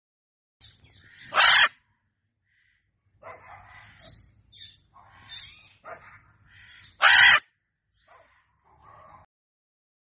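Blue-and-yellow macaw calling: two loud squawks, one about a second and a half in and another about seven seconds in, with quieter squawks and chatter between them.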